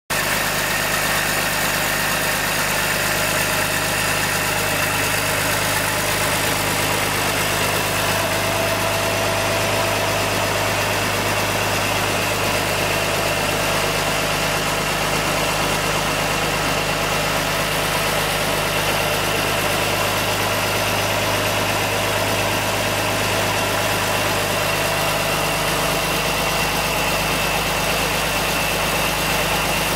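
Mercedes-Benz MB trac 1800 Intercooler tractor's turbocharged diesel engine idling steadily with the tractor standing still, a steady high whine over the low engine note.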